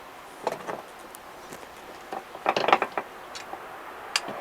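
Solid rubber scooter tire being pinched and forced onto its metal rim by hand with pliers: scattered clicks, creaks and scrapes, with a quick cluster of them about two and a half seconds in.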